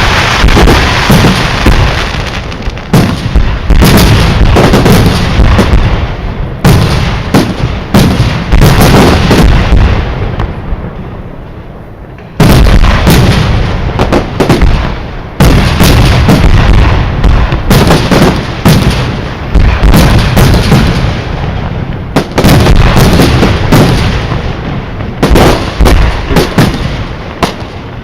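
Aerial fireworks display: shells bursting in quick succession with deep booms and crackling reports. The volley dies down briefly in the middle, then resumes with a sudden loud salvo and continues densely.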